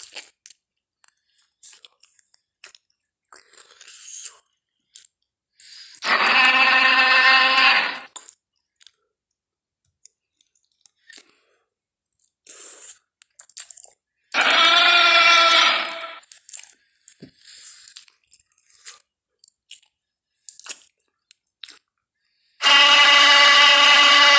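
Tarbosaurus roar sound effects: three loud, harsh pitched roars of about two seconds each, spaced roughly eight seconds apart, with faint crunching and chewing clicks in between.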